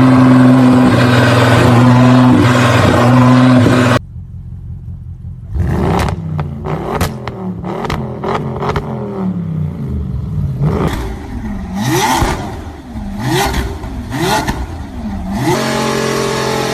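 Car engines edited back to back. First a loud engine holds a steady high note. After a sudden cut, an engine is revved repeatedly, its pitch rising and falling four or five times, with sharp cracks from the exhaust. Near the end a steady engine note comes in again.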